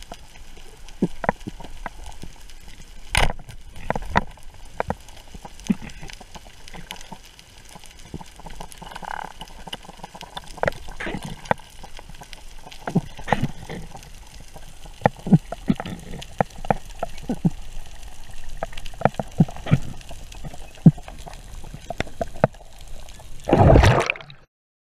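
Underwater sound of a spearfishing dive: a muffled water background with many scattered clicks and knocks, and a sharp crack about three seconds in as the speargun fires at the ulua. Near the end a loud rushing burst, then the sound cuts off.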